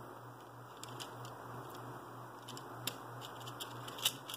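Scattered light plastic clicks and taps as a clear plastic parts box is handled and its latched lid worked, the sharpest click near the end, over a steady low hum.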